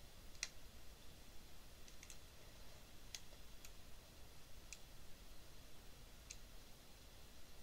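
Computer mouse clicking: about seven short, sharp single clicks at irregular intervals, over a faint steady hiss.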